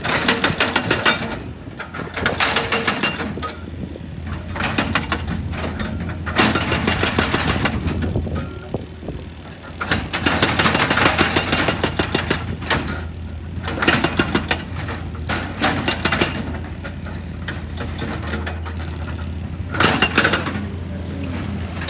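Excavator-mounted hydraulic breaker hammering rock in repeated bursts of a second or two, with rapid blows, over the steady drone of the excavator's diesel engine.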